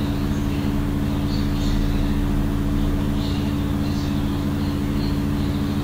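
Steady low background hum with a constant drone and a hiss of noise over it.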